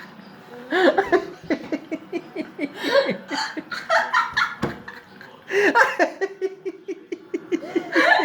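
A girl's sudden hiccups, about a second in and again about halfway through, amid bursts of laughter; in the second half the laughter runs as a quick rhythmic series of giggles.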